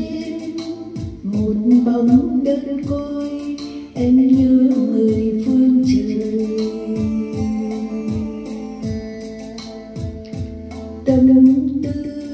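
A song with held sung notes over a steady electronic beat: booming kick drums about twice a second and quick hi-hat ticks.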